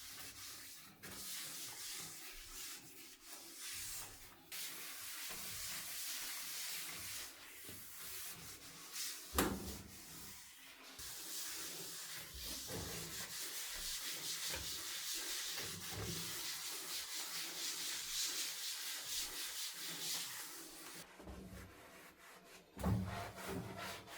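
Scrubbing the bathtub surface by hand: steady rubbing and scouring strokes, louder in the middle stretch. A sharp knock about nine seconds in and another near the end.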